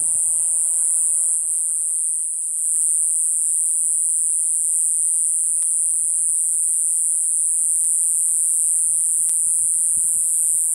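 A steady, high-pitched hiss that holds an even level throughout, with a brief dip about two seconds in.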